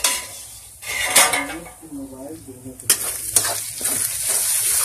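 Onion, ginger and garlic masala frying in oil in a steel kadhai while a spatula stirs and scrapes it against the metal, with a few sharp clicks of spatula on pan. The sizzle grows steadier and louder from about three seconds in as the masala is turned over.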